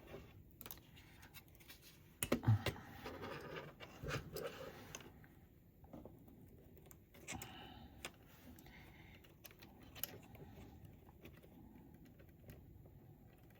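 Faint scattered clicks, taps and scrapes of hands handling a plastic scale model and its parts, with a few brief rustles a couple of seconds in.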